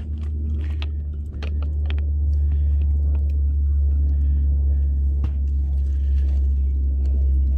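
Wind buffeting the microphone as a steady low rumble, growing louder about a second and a half in, with a few faint clicks from the camera being handled.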